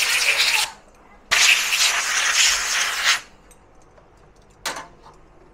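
Compressed-air blow gun on a compressor hose blasting in two bursts, a short one and then one of about two seconds, blowing dust out of a clogged graphics-card heat sink. A brief knock follows near the end.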